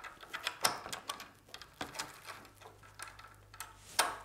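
Irregular metal clicks and clinks as a pin and metal bracket are worked into the drift paddle mount on a Power-Pole Blade anchor. A louder click comes near the end as the part goes into place.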